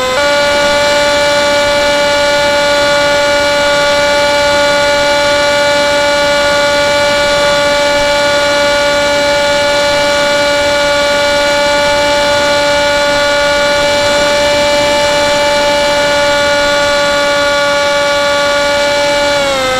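Motor and propeller of an FPV model plane, heard through its onboard camera: a steady whine that steps up a little just after the start, holds one pitch, then slides down in pitch near the end as the motor slows.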